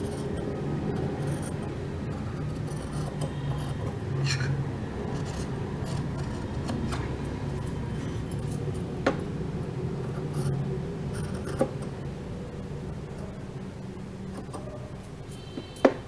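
Large tailor's scissors cutting cotton fabric along a curved neckline: the blades rasp through the cloth, with a few sharp clicks in the second half, the loudest near the end, over a low steady hum.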